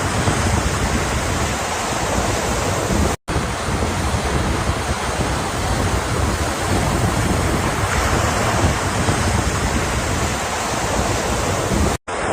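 Ocean surf washing steadily, with wind buffeting the microphone. The sound cuts out completely for an instant twice, about three seconds in and again near the end.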